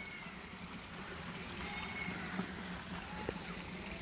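Small garden stream running and trickling over rocks, a steady water sound.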